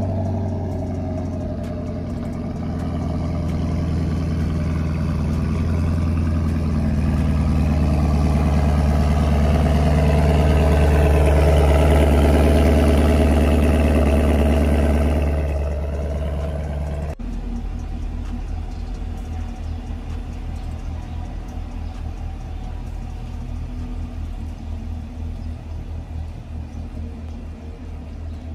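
Chevrolet Camaro engine running through its exhaust: a steady hum that swells louder toward the middle and eases off, then, after an abrupt cut, a lumpy, pulsing idle to the end.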